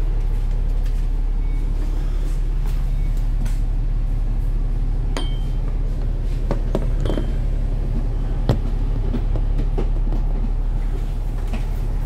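Bus running with a steady low engine hum, with scattered clinks and rattles and a couple of short high beeps.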